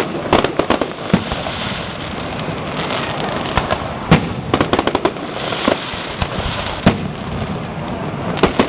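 Fireworks display going off: a continuous crackle broken by many sharp bangs, coming in quick clusters about half a second in, around four to five seconds, and again near the end.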